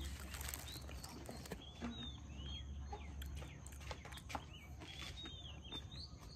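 Birds chirping faintly, a scatter of short falling chirps, over a low steady rumble of outdoor background noise.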